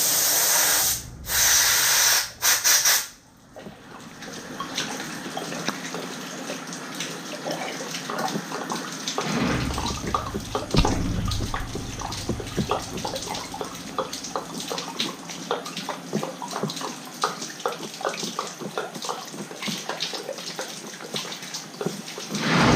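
Water-like spraying and splashing. A loud hiss in the first three seconds cuts off abruptly, and a quieter wash follows, dotted with many small irregular clicks and ticks.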